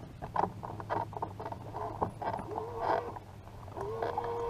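Scattered small clicks and knocks of hands unhooking a freshly caught crappie and handling rod and line, over a steady low hum.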